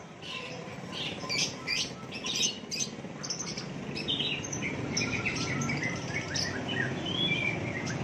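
Many caged songbirds chirping and twittering in short, overlapping calls, over a low background rumble that grows louder in the second half.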